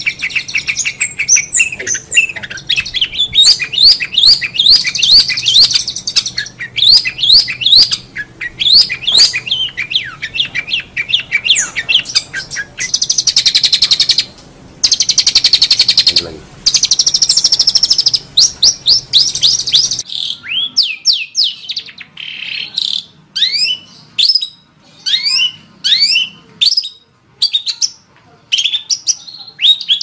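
Long-tailed shrike (cendet) singing a fast, varied song of rapid chirps and sweeping whistles, broken by harsh buzzy trills near the middle. About two-thirds of the way through, a faint low hum underneath stops, and the song goes on as more spaced, falling notes.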